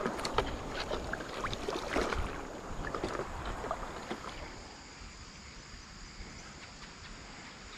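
A paddle dipping and splashing in shallow river water, with drips and small knocks, for about the first four seconds; after that only a faint steady hiss.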